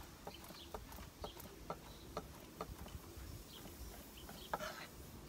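A chef's knife chopping red onion on a wooden cutting board: light, irregular taps, about two a second.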